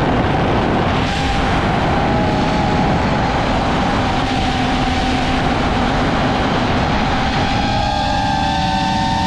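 DJI FPV drone's electric motors and propellers whining in flight, with heavy wind rush on the camera's microphone. Near the end the whine splits into several steady tones at different pitches.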